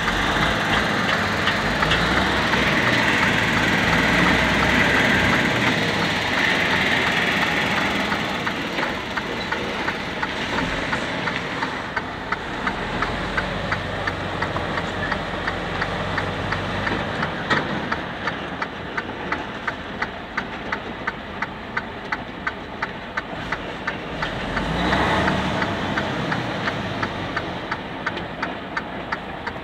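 Truck's diesel engine running at low speed, heard from inside the cab, with a steady clicking about twice a second that is clearest in the second half.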